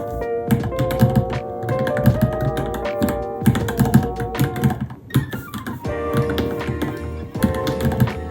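Rapid typing on a Varmilo Minilo mechanical keyboard, a quick irregular run of key clicks with a short lull about five seconds in, over background music.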